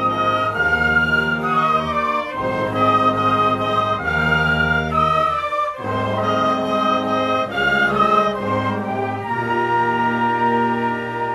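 Orchestral music with brass and strings playing held chords that change every couple of seconds.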